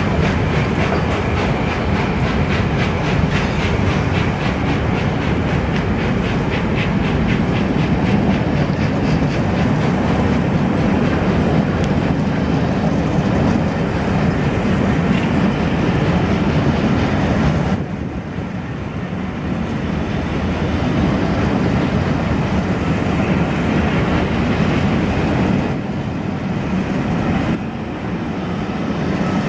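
Train running on the rails, with a steady running noise and a regular clickety-clack beat in the first several seconds.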